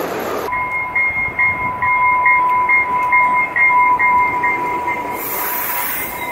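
A railroad warning bell rings steadily, about two strikes a second, at a commuter train beside a station platform, with a short burst of hiss about five seconds in. Before the bell, in the first half second, a model train is running.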